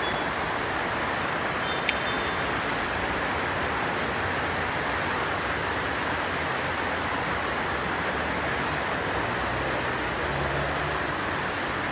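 Steady, even hiss of background room noise, with one short click about two seconds in.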